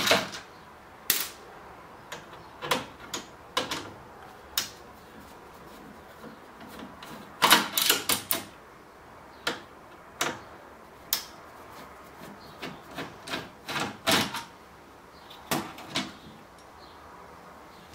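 Screwdriver turning out the screws of a flat-screen TV's loudspeaker mount on the sheet-metal chassis, with scattered metallic clicks and clacks as the screws and the speaker are worked loose. The clicks are denser and louder about halfway through and again later on.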